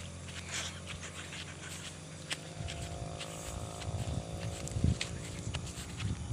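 Outdoor ambience of a hiker walking on a grassy ridge: wind rumbling on the phone's microphone and light footsteps. For a couple of seconds midway a faint, steady droning tone comes in from something distant.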